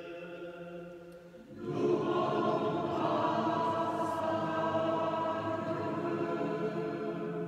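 Choir singing sustained notes of a liturgical chant; a fuller, louder chord comes in about a second and a half in and is held.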